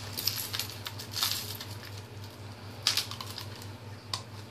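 Stack of baseball cards stuck together being pried apart and handled: irregular light clicks and crackles, with a sharper snap about three seconds in.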